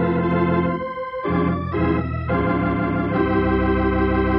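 Organ music bridge: a series of sustained chords that change several times, then settle into one long held chord about three seconds in.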